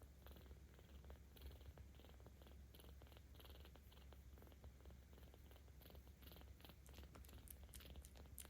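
A 17-day-old kitten purring faintly: a steady low rumble with a soft rhythmic breathy hiss, and a few small clicks near the end.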